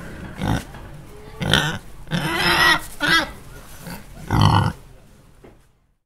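Domestic pigs grunting in a run of short separate calls. The longest call, about two seconds in, wavers in pitch, and the sound dies away near the end.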